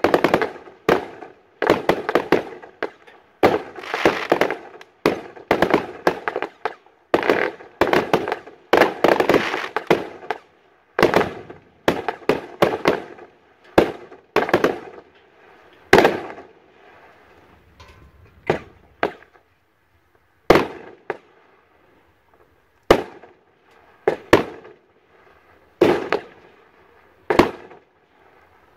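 Aerial fireworks bursting in a professional display: rapid sharp bangs that run close together for the first half, then thinning to single bangs a couple of seconds apart.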